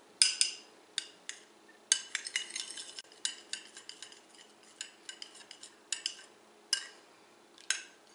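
A metal spoon beating raw eggs in a small ceramic bowl: irregular clinks of the spoon against the bowl, each ringing briefly, some in quick runs.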